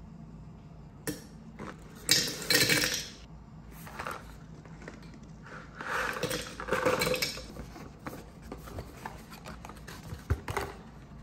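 Aluminium Nespresso coffee capsules tipped from a cardboard box into a glass jar, clattering and clinking against the glass and each other. There are two main bursts, about two seconds in and around six to seven seconds in, then a few lighter clinks.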